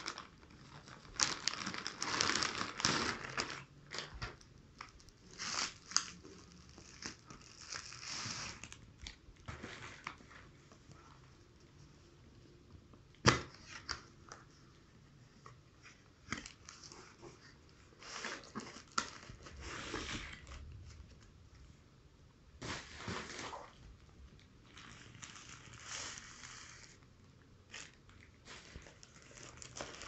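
Plastic courier mailer being torn open and crinkled, then a cardboard product box handled and opened and a plastic-wrapped item pulled out: irregular rustling and crinkling with one sharp click a little before halfway.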